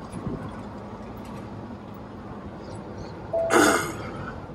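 Steady engine and road noise inside the cab of a Peterbilt 389 tractor driving on a rough road. A short, loud, hissing burst of sound comes about three and a half seconds in.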